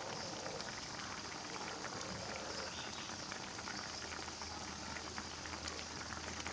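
Pot of coconut-milk fish curry with baung catfish pieces simmering, bubbling steadily with many small pops as the fish cooks. A low hum joins about two seconds in.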